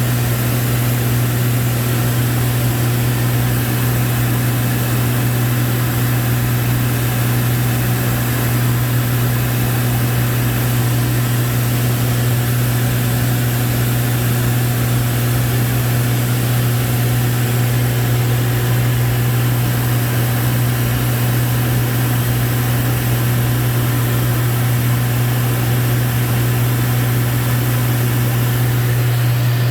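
Lancair IV-P's engine and propeller droning steadily in flight, heard inside the cockpit: one low, unchanging hum with a constant rush of airflow hiss over it.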